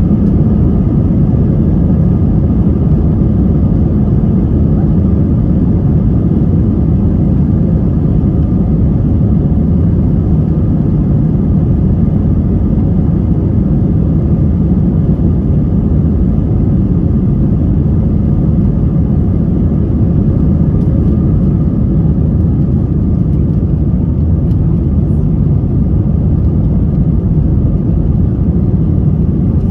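Airbus A320-232's IAE V2500 turbofan engines at takeoff thrust, heard from the cabin beside the wing: a loud, steady roar through the takeoff roll, liftoff and initial climb.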